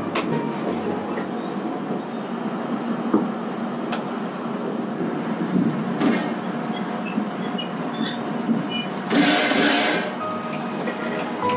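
Railcar rolling slowly over yard tracks with a steady rumble and clatter of wheels on rails. A thin, high wheel squeal comes in about halfway through and lasts a few seconds, followed near the end by a short rush of hiss.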